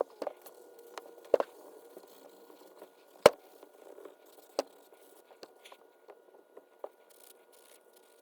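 Scattered sharp clicks and knocks at irregular intervals, the loudest about three seconds in.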